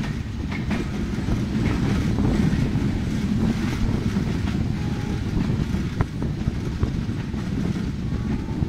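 Passenger train running at speed, heard from on board: a steady low rumble of wheels on the rails, with wind on the microphone. A single sharp click about six seconds in.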